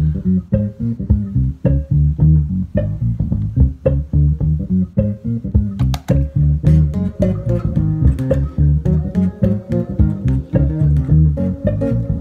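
Extended-range electric bass guitar played through effects pedals: a steady run of fast plucked notes, with sharper, clicky attacks from about six seconds in.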